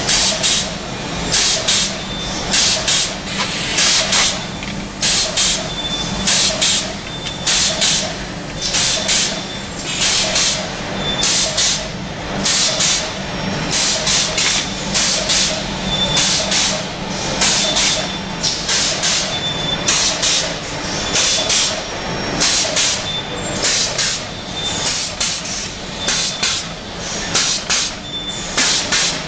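Automatic cupcake and muffin production line running: a steady machine hum under repeated short hisses of air, about one a second, as trays of paper cups are moved along the conveyors.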